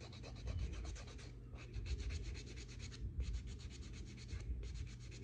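A nail file rubbing quickly back and forth across a fingernail in short runs of rapid strokes with brief pauses: the natural nail being roughed up so a press-on nail will stick.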